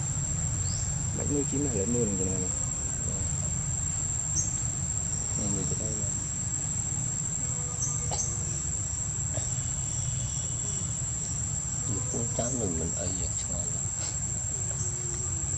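Insects droning in a steady high-pitched tone, over a low rumble.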